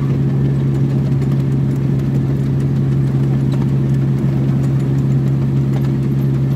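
Engine of a ride-on miniature railway locomotive running at a steady, unchanging pitch as it hauls the passenger cars along the track.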